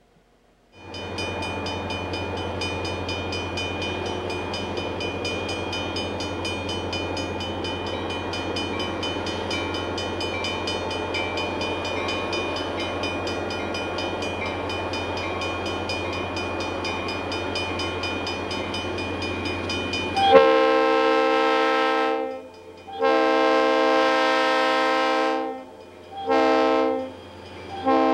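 Rio Grande diesel freight locomotives approaching with a steady engine drone. About two-thirds of the way in, the lead unit's multi-tone air horn sounds two long blasts and a short one, and a fourth long blast starts right at the end: the long-long-short-long grade-crossing signal.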